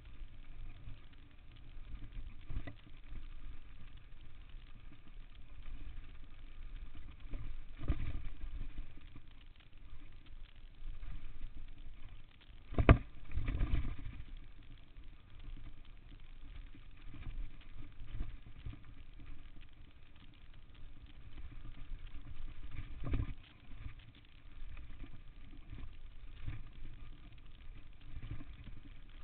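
Downhill mountain bike riding a dirt trail: a steady rumble of tyres and wind on the microphone, with the bike rattling and knocking over bumps. The sharpest, loudest knock comes about 13 seconds in, and lesser ones come around 8 and 23 seconds.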